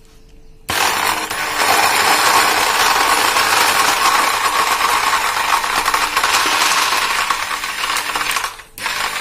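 Electric blender running loudly, blending mango pieces, yoghurt and ice cubes into mango lassi, with the ice rattling inside. It starts about a second in, stops briefly near the end and starts again.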